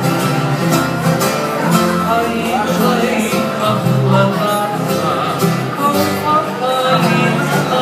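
Live hula music played on a plucked acoustic guitar, with a steady rhythm.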